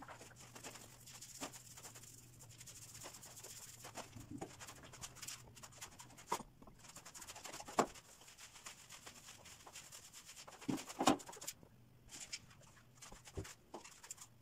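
Paint roller on an extension pole being rolled over a wall with water-based emulsion paint: a faint rolling noise with scattered clicks and a few louder knocks.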